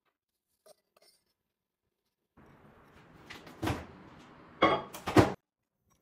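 Microwave oven humming as it heats a bowl of oats and water, with loud clunks and clatter of its door and the ceramic bowl about three and a half, four and three quarters and five and a quarter seconds in; the hum starts about two and a half seconds in and cuts off suddenly near the end.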